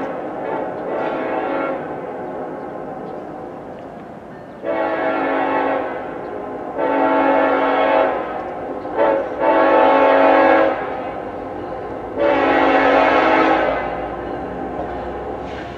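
Norfolk Southern diesel freight locomotive's multi-chime air horn sounding the grade-crossing signal as the train approaches: two long blasts, a short one and a long one, then another long blast. It follows fainter blasts at the start, and the locomotive's engine rumble grows near the end.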